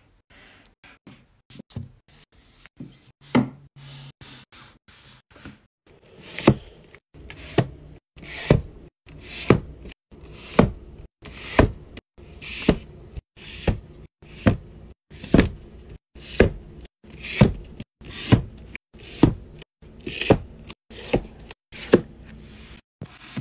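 Books handled on a shelf: light taps and one thud as paperbacks are stacked, then from about six seconds in, hardcover books knocked and pressed down onto the shelf about once a second, each knock with a short scuff of the cover.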